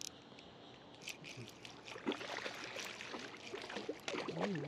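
A small fish splashing and thrashing at the water's surface as it is reeled in on a spinning reel: a run of quick, irregular small splashes and clicks. A short hummed voice sounds near the end.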